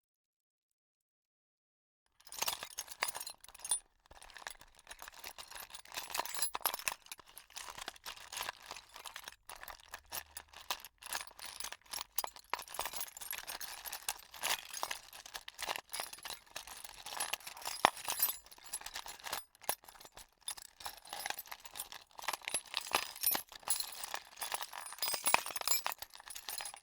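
Small hard objects clinking and rattling together in a busy, irregular stream of sharp clicks, starting about two seconds in after silence.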